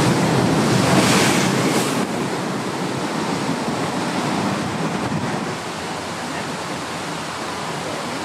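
Steady rush of running water, louder and hissier for about the first two seconds, then even.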